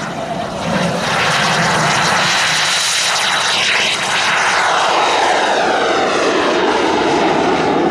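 Model jet turbine engine of a large-scale RC BAE Hawk at full power for takeoff, a loud steady jet rush and whine, falling in pitch as the plane passes and climbs away about four seconds in.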